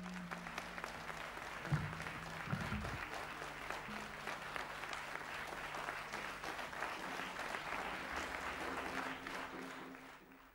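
Audience applauding, with a couple of low thumps about two seconds in and a low steady hum beneath. The applause fades out near the end.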